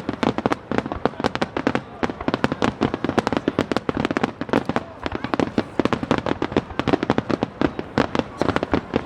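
Fireworks display: a rapid, continuous barrage of bangs and crackles, many reports a second.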